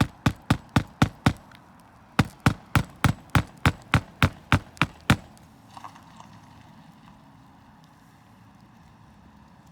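Hammer driving roofing nails while a new shingle is fastened in. There are two quick runs of sharp blows, about three or four a second. The first run ends about a second and a half in, and the second runs from about two to five seconds in.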